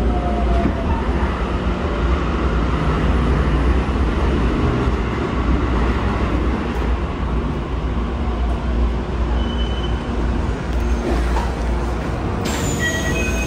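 Keikyu 1000 series electric train running, heard from inside the passenger car: a steady rumble of wheels on rail, with faint falling tones from the Toshiba IGBT-VVVF traction equipment at the start. About a second before the end the sound changes abruptly, with thin high-pitched tones added.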